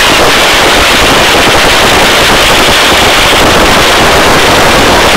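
Helicopter rotor and engine noise in a hover, heard through the open cabin door: a loud, dense, rapid chopping that stays steady throughout.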